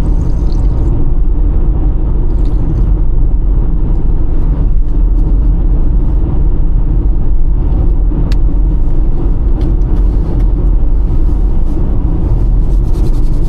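Micro camper van driving along, a steady low rumble of engine and road noise.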